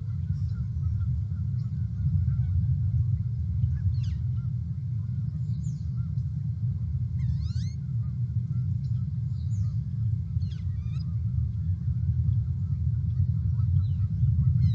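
A steady low rumble, with faint, distant bird calls over it: short notes that sweep up and down in pitch, a few seconds apart, clustered in the middle of the stretch.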